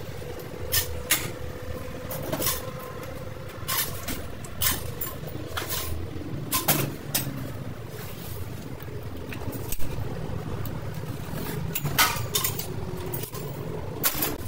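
Sharp knocks and clicks at irregular intervals, about a dozen of them, over a steady low rumble.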